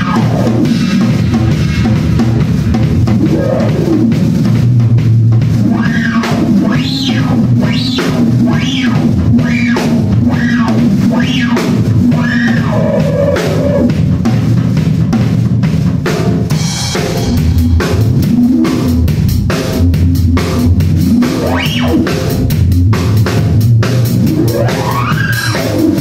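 Drum kit played with a fast beat alongside a Korg Monotron Duo analog ribbon synthesizer. The synth holds a low drone and swoops up and down in pitch again and again.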